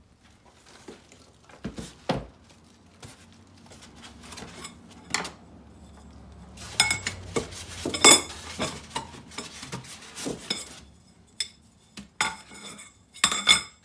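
Metal parts of a hand-operated leather stitching machine clinking and clattering as they are handled and lifted out of a styrofoam packing box, among plastic wrap. The loudest clanks ring briefly, about halfway through and again near the end.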